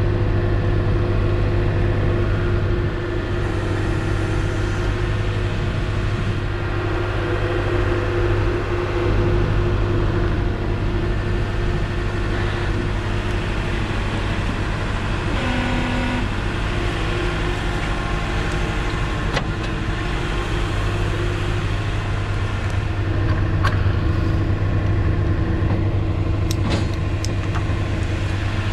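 Tow truck's engine idling steadily with a low, even hum, with a few light clicks and knocks near the end.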